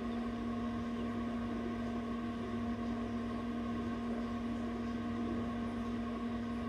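Egg incubator running with a steady mechanical hum that holds one strong low tone.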